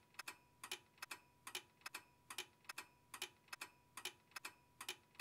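Even, clock-like ticking, a sharp double tick a little over twice a second, over a faint steady high tone.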